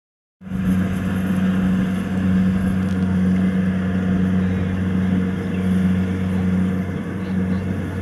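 Kubota DC-70 combine harvester's diesel engine and threshing machinery running at a steady drone as it harvests rice. The sound cuts in abruptly a moment in.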